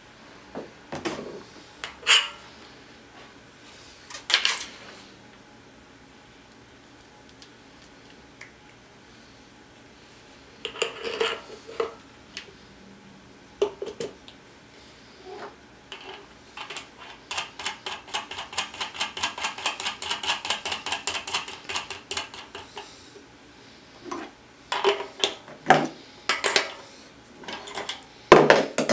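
Small metal parts of a Profile Z-Coaster BMX freecoaster hub clinking and knocking as the driver is handled and fitted into the hub. A few seconds past the middle comes a run of rapid, even ratcheting clicks lasting about five seconds: the hub's pawls clicking as the driver turns.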